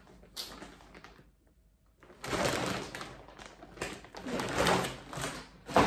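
A large blue woven-polypropylene IKEA FRAKTA shopping bag rustling and crinkling as it is lifted and shaken. There are two longer rustles, about two and four seconds in, and a short sharp one near the end.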